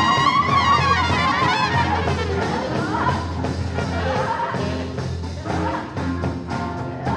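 Live improvised band music with brass, trumpet and trombone among it. A high held line wavers through the first second or so over a steady low bass drone, then the texture turns looser and more scattered.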